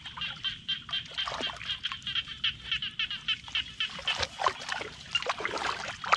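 Shallow muddy paddy water sloshing and splashing as hands grope inside a bamboo plunge-basket fish trap, in quick repeated strokes about four a second that grow busier and more irregular in the second half.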